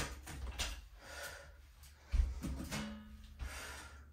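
A person breathing hard through the nose and mouth during a strength-and-balance exercise, in repeated audible breaths, with a dull thump about two seconds in.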